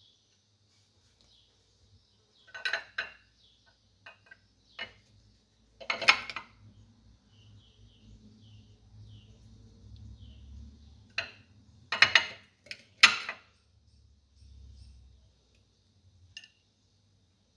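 A knife slicing lemons into rounds: scattered clicks and knocks with quiet gaps between them, the loudest knocks about six, twelve and thirteen seconds in.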